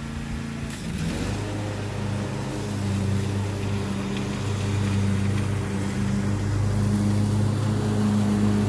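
Craftsman Z6000 zero-turn riding mower's engine running steadily while mowing, its note shifting about a second in and growing louder as the mower comes closer.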